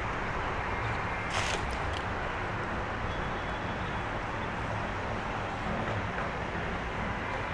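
Steady hum of city traffic, with a brief hiss about a second and a half in.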